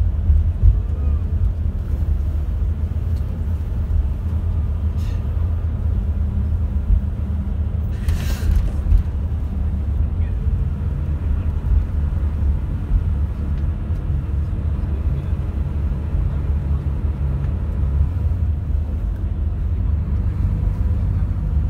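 Coach engine and road noise heard inside the cabin while cruising: a steady low rumble, with a brief hiss about eight seconds in.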